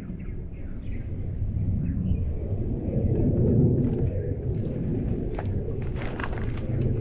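Wind rumbling on the microphone, with a run of sharp clicks in the second half.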